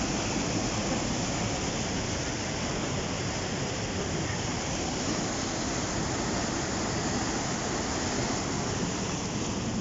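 White water of a fast river rushing over rocks: a steady, even noise with no breaks.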